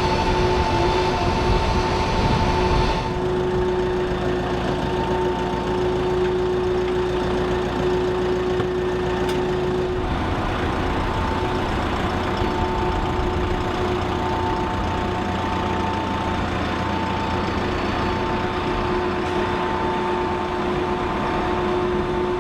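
Aircraft engines running steadily, a continuous drone with a held whine over a rumble. The sound changes abruptly about 3 seconds and 10 seconds in.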